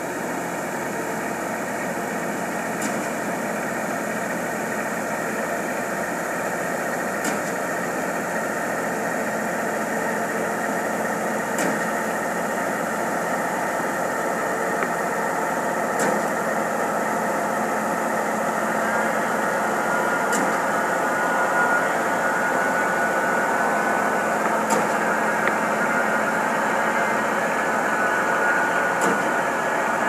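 Steady running of construction machinery engines on a concrete-pour deck, growing a little louder in the last third. A short sharp click recurs about every four seconds.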